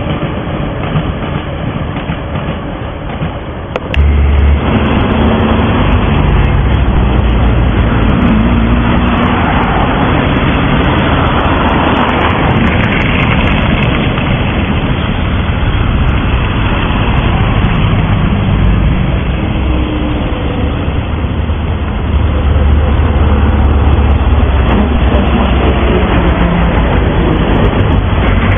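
Moscow metro train running on an open-air section, a steady rumble of wheels on rails. About four seconds in the sound changes abruptly to a louder, deeper rumble as a metro train approaches along the tracks, growing louder again toward the end.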